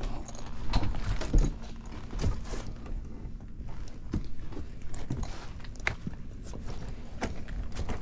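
Irregular knocks, thumps and rustling of a person crawling over attic joists, boards and insulation with a tool bag, its tools clinking, over a steady low hum; the loudest thumps come about a second in.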